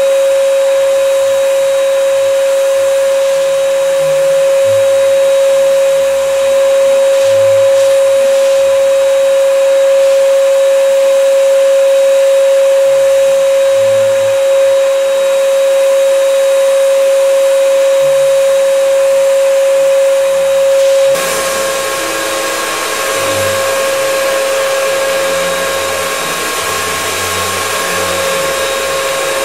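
HVLP turbine spray rig running, with a cup spray gun spraying finish: a steady whine over a rush of air. About 21 seconds in, the sound changes abruptly to a slightly quieter mix with a higher whine.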